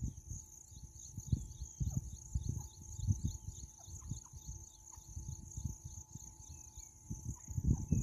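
Insects chirping in a rapid, even pulse, about four chirps a second, over a constant high buzz, with gusts of wind rumbling on the microphone. A few faint, short, falling bird notes come through here and there; no loud francolin call is heard.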